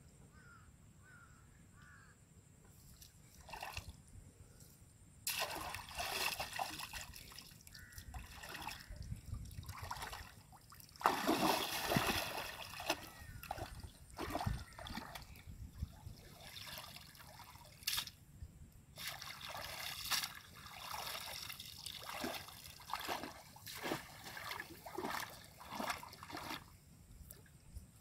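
Shallow muddy water sloshing and splashing in irregular bursts as hands and a woven basket are worked through it, loudest a little under halfway through.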